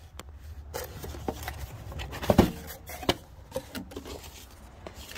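Cardboard box being handled and opened on a table: scattered scrapes and light taps, with a louder knock a little over two seconds in.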